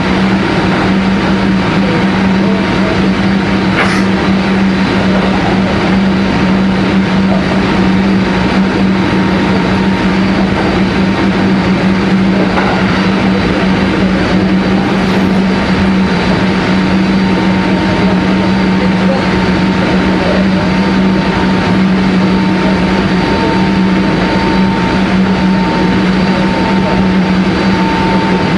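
Kintetsu 1420 series VVVF-inverter electric train running at a steady speed, heard from on board: a continuous rumble with a strong low hum and a fainter higher tone, both held at one pitch. There is a short click about four seconds in.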